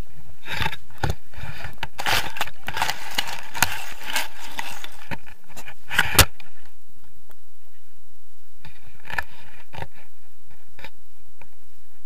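Wind noise and rubbing on an action camera's microphone as a tandem paraglider lands in grass. A dense run of scrapes and knocks fills the first half, with a few sharp knocks near the end.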